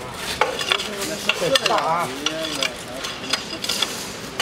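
Damp concrete mix being shovelled into the steel mould of a concrete hollow block machine: a gritty scraping and rattling with many sharp clicks as grit and stones hit and slide over steel. A short wavering tone is heard about two seconds in.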